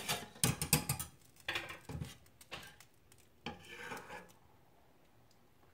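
Metal spoon clinking and scraping against dishes as the cream sauce is scooped up. A quick run of clatters comes in the first second, then scattered softer scrapes and knocks that stop about four seconds in.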